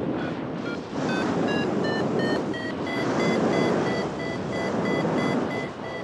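A flight variometer beeping about three times a second, its tone rising over the first two seconds and then holding high, the sign of the glider climbing. Heavy wind rushes over the microphone underneath.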